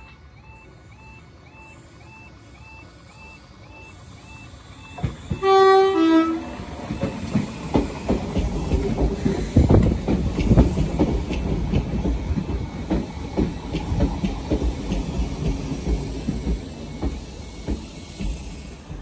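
A level crossing warning alarm warbles in a regular repeating two-tone pattern as a Class 313 electric multiple unit approaches. About five and a half seconds in, the train sounds a two-tone horn, high note then low. It then runs past close by, its wheels clattering over the rail joints.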